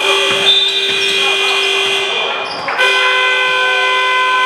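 Basketball game horn or buzzer sounding in a gym: a long, steady blast, a short break about two seconds in, then a second long blast.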